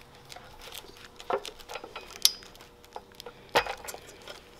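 Small clicks and clinks of hands working a fog light's metal mounting bracket and plastic thumbwheel screw loose to take the bracket off, with a few sharper clicks, the loudest about three and a half seconds in.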